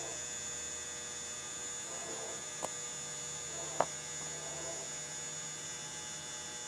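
Steady electrical hum with a faint high whine, and two light clicks a second apart near the middle.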